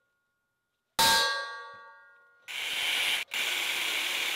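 One hammer blow on a center punch against a steel plate about a second in, a ringing metallic clang that dies away. About a second later a cordless Hilti drill starts drilling into the hard train-rail steel, running steadily with a brief stop partway.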